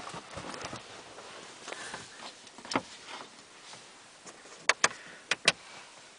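Sharp clicks over faint rustling: one about three seconds in, then two quick pairs near the end.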